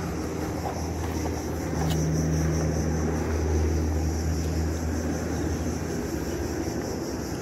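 A distant engine's low, steady drone that swells about two seconds in and eases off near the end, over a steady high-pitched hiss, with one short click.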